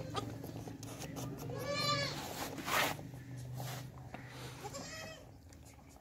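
Goats bleating while kids suckle from a doe: a short bleat about two seconds in and another about five seconds in, with a brief noisy burst just before three seconds. A faint low steady hum runs underneath.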